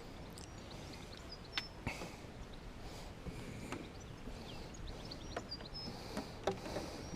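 Small birds chirping over steady outdoor background noise, with a few sharp clicks or taps scattered through.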